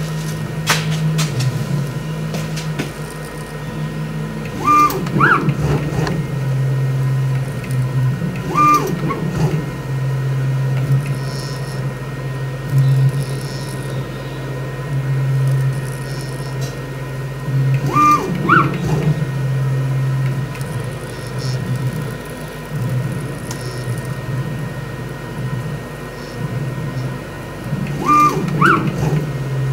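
A Sieg CNC mill drag engraving lettering into an aluminium part: a steady low machine hum from the axis drives. Four times, several seconds apart, a short higher whine rises as the machine makes a quicker move.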